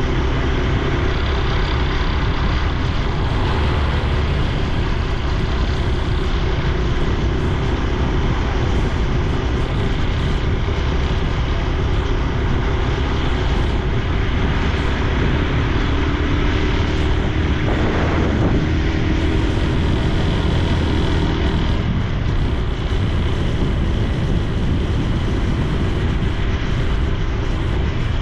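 Honda Super Cub C125's 125 cc single-cylinder four-stroke engine and exhaust running steadily while riding on the road.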